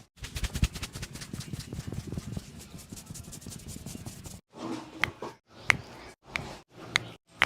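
Hands rubbing briskly and dryly over a head of hair and scalp during a vigorous head massage: a dense, fast rubbing. After about four and a half seconds it gives way to a few separate sharp smacks.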